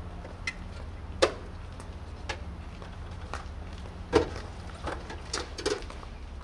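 Irregular knocks and clicks as a dryer vent hood is handled and fitted against the house siding, two of them sharper, about a second in and about four seconds in. A steady low rumble runs underneath.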